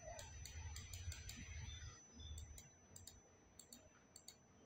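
Faint, irregular computer mouse clicks over quiet room tone, made while clicking and dragging colour sliders.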